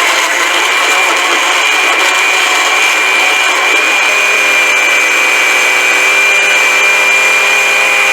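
Blender running steadily with a high whine, pureeing cooked kohlrabi with heavy cream and butter into a smooth puree.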